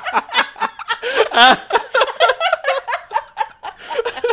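People laughing loudly in quick, rhythmic bursts of giggling and chuckling.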